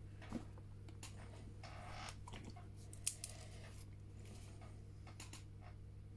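Faint clicks and a soft rustle of small plastic dropper bottles of paint wash being handled, over a steady low hum.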